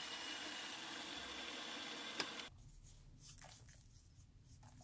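Vertical milling machine running steadily while drilling a hole in a clamp jaw, with a single click about two seconds in. Half a second later the running stops, and faint short brushing strokes follow as chips are swept off the vise.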